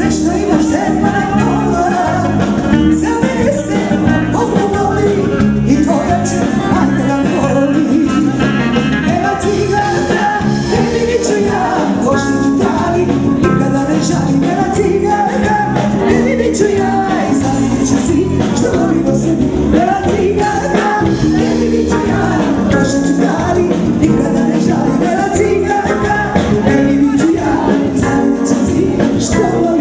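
A woman singing into a handheld microphone over amplified live band music with keyboards and a steady beat.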